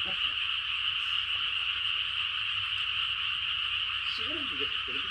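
A large chorus of frogs calling all at once, a dense unbroken din in which no single call stands out.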